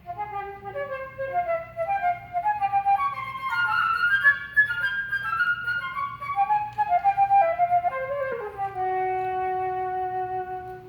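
Solo flute playing a winding melody of quick notes that climbs and then falls, ending on a long held low note.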